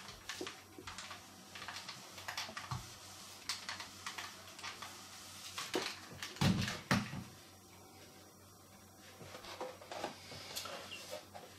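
Desk handling noises: paper rustling and light taps while a clothes iron is worked over a card under a protective sheet, then a couple of dull thumps about halfway through as the iron is moved off and set down. After that come soft crinkles as the plastic blister card is picked up and handled.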